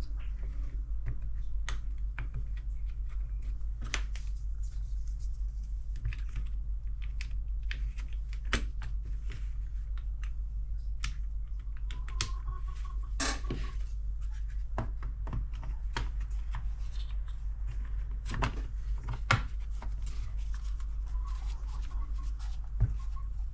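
Handling noise of a cordless jigsaw being reassembled: scattered clicks, taps and scratches of plastic housing parts and wires, with a brief squeak about halfway and a few sharper knocks later on, over a steady low hum.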